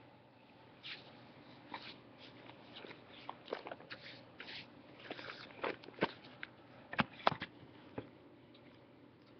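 Rustling and crinkling of a newspaper being handled, with scattered sharp clicks; the sharpest are two clicks close together about seven seconds in.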